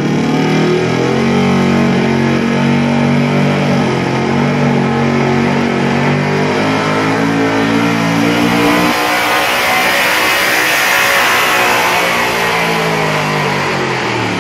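Pickup truck engine running hard at high revs while it drags a weight-transfer pulling sled. The note is steady at first. About halfway a louder rushing noise takes over, and near the end the engine's pitch drops as the revs fall.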